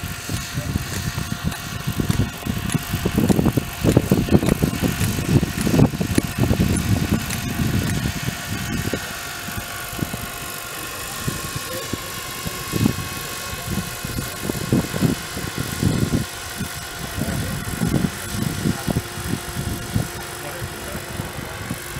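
Radio-controlled aerobatic helicopter flying, its rotor and motor giving a steady whine that shifts in pitch about halfway through. Heavy, irregular low rumbling runs through the first half.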